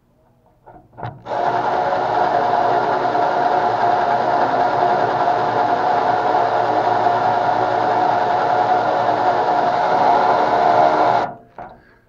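Power drill with a twist bit drilling a pilot hole into the head of a rusted, stripped door-handle screw. A couple of short trigger blips about a second in, then a steady motor whine for about ten seconds that cuts off suddenly just before the end.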